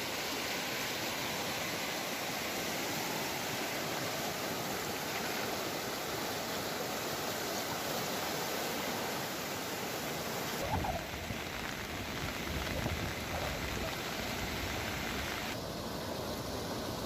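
Steady rushing noise of water from monsoon rain and flooding. About ten seconds in the sound changes abruptly and a low rumble joins it; it changes again near the end.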